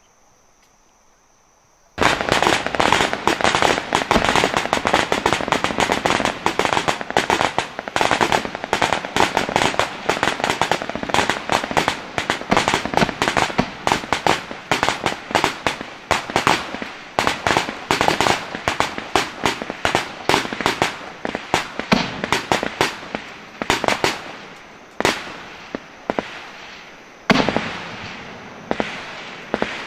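Rapid, sustained gunfire from many rifles, shots overlapping into a continuous crackle. It starts suddenly about two seconds in after near silence, and grows sparser toward the end with a short lull before picking up again.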